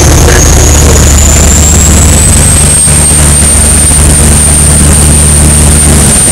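Racing lobster boat's engine running, a steady low drone under a high whine that rises in pitch over the first few seconds and then holds steady; the drone cuts off near the end.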